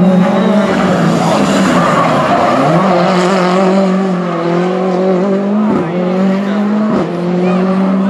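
Ford Fiesta rally car at full stage pace: the engine note drops as the driver lifts for the corner about two seconds in, then climbs under hard acceleration away, broken by two quick upshifts near the end. Tyre noise from the gritty, dusty tarmac runs under it.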